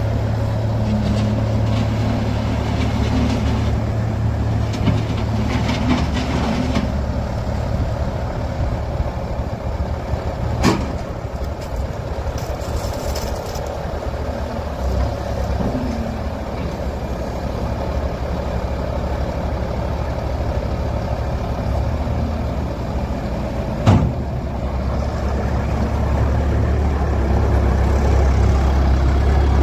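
Bobcat S220 skid steer loader's 75 HP Kubota diesel engine running steadily, with two sharp knocks, one about a third of the way in and one near the end, and the engine getting a little louder in the last few seconds.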